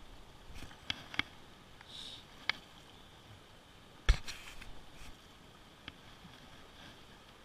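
A few scattered clicks and knocks from fishing gear being handled in a boat, with one sharper knock about four seconds in, over a faint steady rush of river water.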